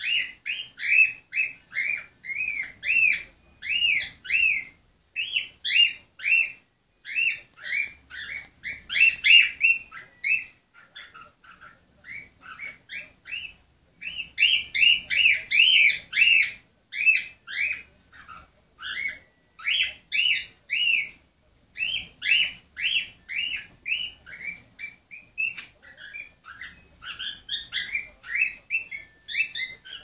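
Cockatiel chirping over and over, short up-and-down whistled notes about two to three a second, with a quieter, sparser stretch in the middle.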